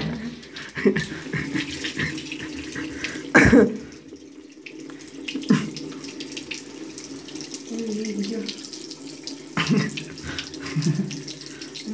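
Tap water running into a bathroom sink while a face is washed by splashing it from cupped hands, with a few short, louder splashes.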